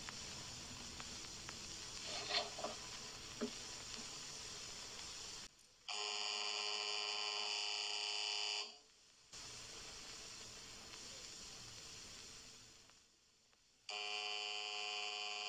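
Electric signal buzzer giving a steady, harsh tone twice, switching on and off abruptly: nearly three seconds long about six seconds in, then again from about fourteen seconds. Before it, only the hiss of an old film soundtrack with a few faint clicks.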